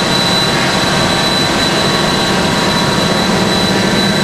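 Steady drone of an offshore gas platform's machinery, with a thin, steady high whine over a low hum.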